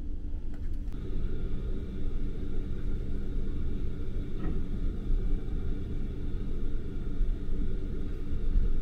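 Steady low rumble of the Sunrise Express, a 285-series electric sleeper train, heard from inside the carriage as it moves through a station. A faint steady high hum joins about a second in.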